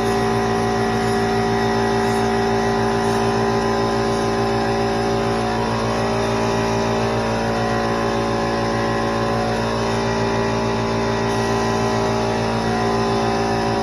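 A small 21-gallon air compressor runs with a steady hum, under the steady hiss of air from an LVLP gravity-feed spray gun spraying base coat.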